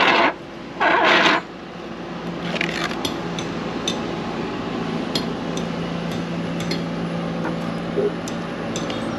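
Two short scraping rushes in the first second and a half as the wooden pad of a boat jack stand is shifted into place against a fibreglass hull. Faint scattered clicks follow.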